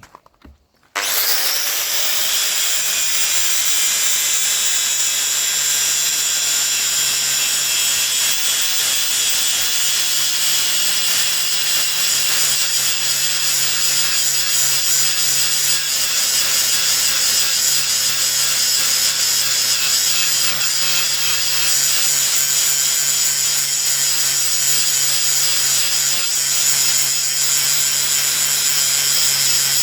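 Angle grinder starting about a second in, whining up to speed, then running steadily as it grinds the steel bevel of a splitting axe, refacing the edge.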